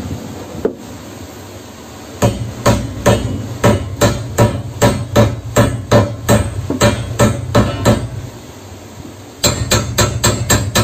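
Hammer striking a threaded metal rod at a boat's rudder fitting. About three blows a second for several seconds, then a short pause, then quicker blows, about five a second, near the end.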